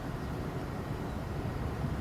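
Steady low rumble of ship engines in the harbour, with no distinct events.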